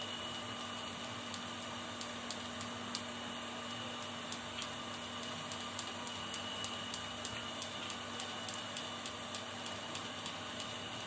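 A kitten licking and chewing wet cat food off a plastic lid: a run of small, quick clicks, several a second and irregular, over a steady background hiss with a faint hum.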